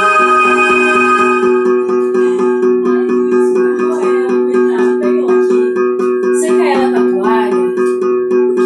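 Instrumental music: steady held low drone notes under a run of plucked string notes, with a brief sliding, falling sound about six and a half seconds in.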